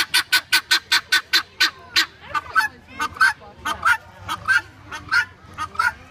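Helmeted guineafowl giving harsh, repeated alarm calls, about five a second for the first two seconds, then slower and more irregular.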